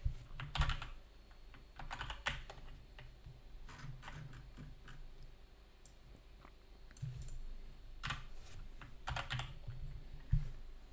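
Typing on a computer keyboard: short, irregular runs of keystrokes with pauses between.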